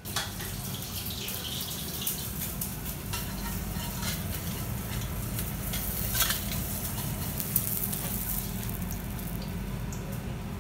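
Food sizzling as it fries, with scattered sharp clicks and knocks over a steady low hum.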